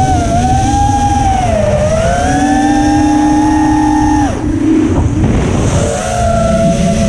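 FPV racing quad's brushless motors whining, the pitch rising and falling as the throttle changes, over a steady rumble of wind and prop wash on the onboard microphone. About four seconds in the whine drops away for more than a second, then comes back lower.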